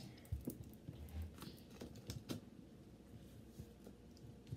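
Faint scrapes and light clicks of a metal ice cream scoop digging into a cardboard tub of ice cream, most of them in the first couple of seconds.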